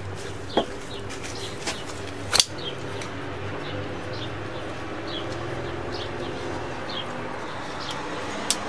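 Folding karambit knife drawn from a jeans pocket, its blade snapping open by the waved opening feature with a sharp click about two and a half seconds in, after a couple of lighter clicks as it clears the pocket; another click near the end as the blade is folded shut. Small birds chirp throughout.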